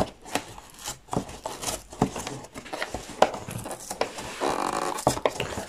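Stubborn wrapping being picked at, pulled and torn off a cardboard trading-card box: irregular crackles, scratches and small rips, with a longer tearing rasp near the end.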